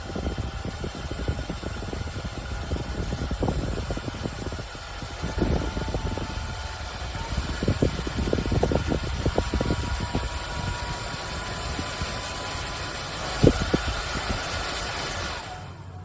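Battery-powered waist-mounted fan running: a steady motor whine over rushing air, with uneven low rumbling gusts. It stops abruptly near the end.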